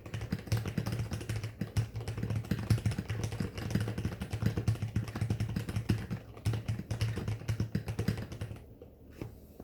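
Computer keyboard being typed on quickly, a dense run of key clicks that stops about a second before the end.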